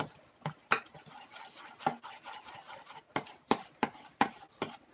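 Irregular light clicks and knocks, about nine in all, from kitchen utensils and objects being handled.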